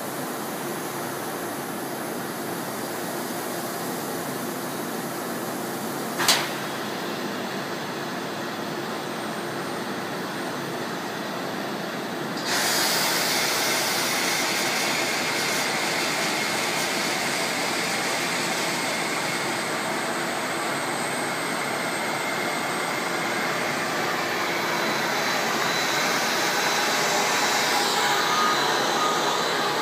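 Industrial machinery running with a steady mechanical noise. A single sharp knock comes about six seconds in, and about twelve seconds in a louder, hissing noise starts and keeps going.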